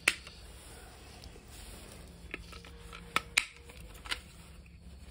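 Small plastic clicks and taps from handling the opened multimeter's back case with its AA batteries fitted: one sharp click at the start, then a few lighter clicks over the next few seconds.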